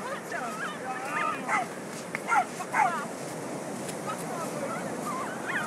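Sea surf and wind noise on the microphone, with a run of short high-pitched cries that bend and drop in pitch over the first three seconds, and one more near the end.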